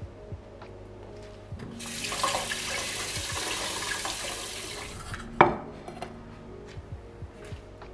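Water running from a kitchen tap for about three seconds, starting and cutting off abruptly. Shortly after, a single sharp knock with a brief ring, the loudest sound.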